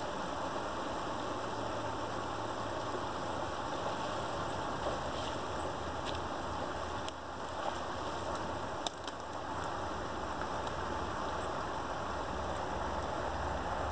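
Creek water rushing steadily through a breach in a beaver dam, with a few faint clicks in the middle.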